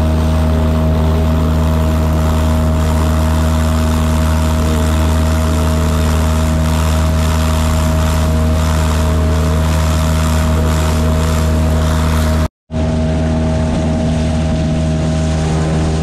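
Motorized fishing kayak's motor running steadily at a constant pitch while under way, with water noise from the moving hull. The sound cuts out for a moment about twelve and a half seconds in, then the same steady running resumes.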